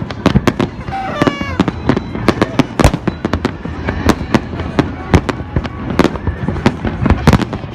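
Fireworks display: a dense, irregular barrage of sharp bangs and crackles, several a second.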